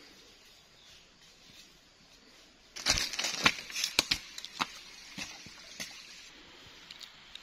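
Bare feet stepping through wet mud and over stones and leaf litter: faint forest background at first, then a sudden run of crunching footsteps about three seconds in, loudest for about two seconds, followed by a few single steps.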